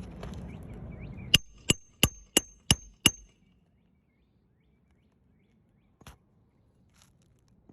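Hammer driving a roofing nail into an asphalt shingle: six quick strikes, about three a second, each with a short metallic ring, starting about a second and a half in. One faint tap follows a few seconds later.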